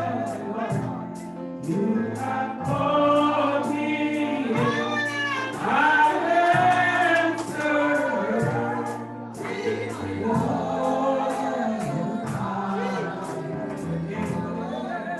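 Gospel song sung by a group of voices with instrumental accompaniment and a steady percussion beat.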